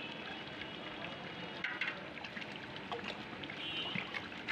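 Tomato sauce being poured into a large metal pot of chicken curry, with scattered small clicks over a steady hiss.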